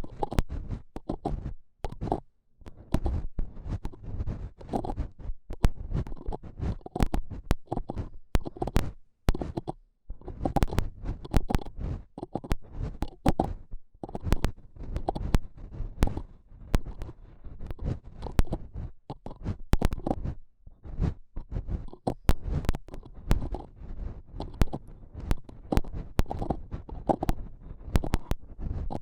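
Close-miked ASMR triggers with no voice: muffled rubbing and scratching against the microphone, with low rumbles and many short, sharp ticks at an irregular pace.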